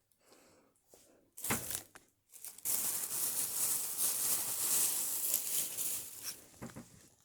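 Crinkling, rustling sound of material being handled by hand: a short rustle about one and a half seconds in, then about three seconds of continuous crinkling, and a brief rustle near the end.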